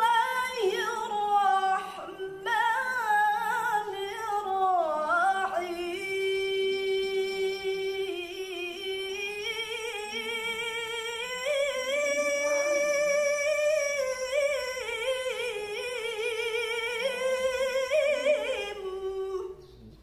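A woman's high voice chanting unaccompanied in the melodic, drawn-out style of Quran recitation (tilawah), holding long notes with wavering vibrato and ornamented turns. It breaks off just before the end.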